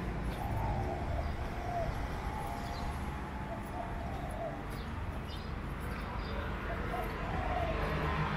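Street ambience: a steady low rumble of distant traffic, with a dove cooing in short phrases several times.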